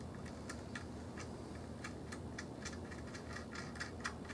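Light, irregular clicks and ticks of a battery cable's terminal nut being turned by hand onto a mobility-chair battery's negative post. The clicks come faster, about three or four a second, in the second half.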